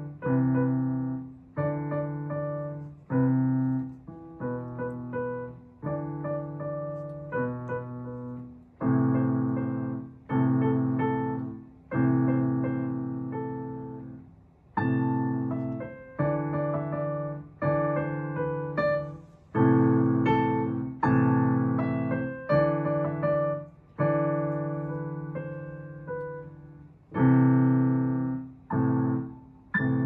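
Piano being played: chords struck one after another, each ringing and fading away, with a higher melody over them.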